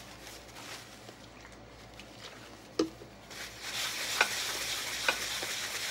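A single sharp click about three seconds in, then a paper towel wet with acetone nail-polish remover being rubbed steadily over the bottom of a dinner plate to scrub off sticker residue.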